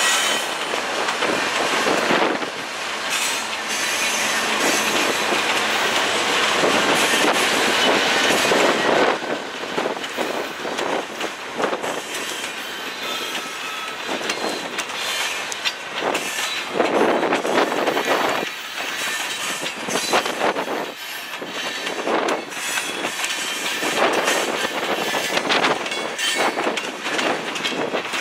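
A freight train passing close by: the trailing diesel locomotive goes by during the first nine seconds or so, louder, then covered hopper cars roll past with a steady rumble of steel wheels and repeated clicks over the rail joints.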